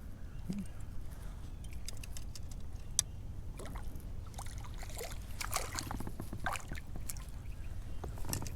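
Small splashes and sloshing of water beside a kayak as a hooked crappie is brought in, with scattered light clicks and knocks and one sharper click about three seconds in.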